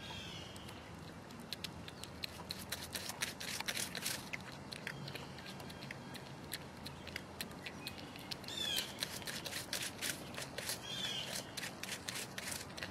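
Porcupine gnawing and chewing a crisp apple held in its paws: a fast, irregular run of crunchy bites and clicks. A few short falling chirps sound in the background.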